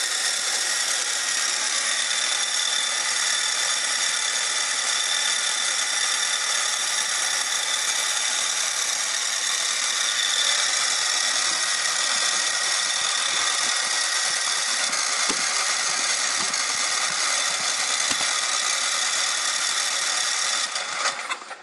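Snowblower's Tecumseh engine being cranked by a motor-driven starter, a steady whirring whine for about twenty seconds that stops suddenly near the end. The engine turns over but does not catch, because no fuel is reaching the carburetor with the fuel shut off.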